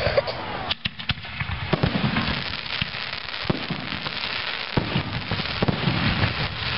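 Aerial fireworks bursting: a string of sharp bangs over dense crackling.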